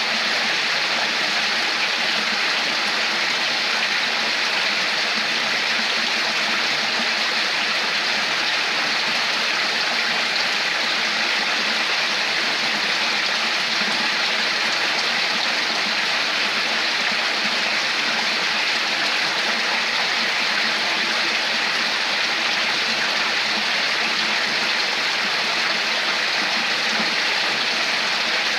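Running water babbling steadily, like a stream, with no change in level.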